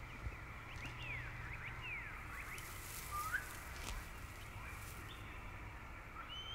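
Quiet woodland ambience: a steady background hiss with scattered short bird chirps, most of them in the first three seconds, and a few faint clicks.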